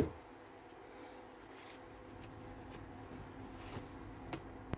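A sharp knock of a part set down on the workbench, then faint rustling and scraping as small drill-motor parts are handled, with a few light ticks near the end.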